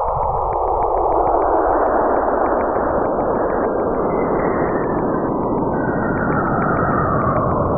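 Cassini spacecraft's Saturn–Enceladus plasma-wave recording converted to sound: a steady loud whooshing noise like wind, with a band of pitch that slides slowly up and then back down.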